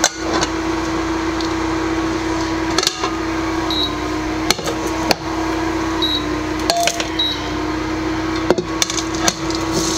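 Steady hum of an RCA induction cooktop running, with knocks and clatter of a steel wok and a flat plate as the omelette is turned over onto the plate and slid back into the pan. A few short high beeps sound in the middle while the wok is off the cooktop.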